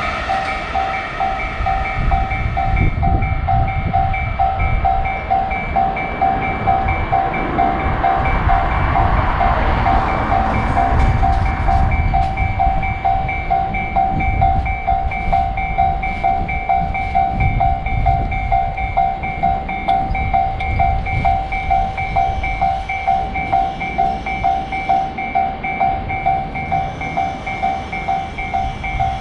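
Japanese railroad crossing warning bell ringing with an even, repeating electronic ding, while a train rumbles through the crossing; the train noise is loudest in the first two-thirds and fades toward the end, leaving the bell.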